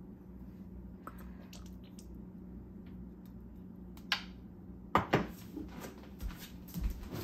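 Cookware being handled at a stove: a short clink about four seconds in, two sharp knocks close together a second later, and a couple of duller thumps near the end, over a steady low hum.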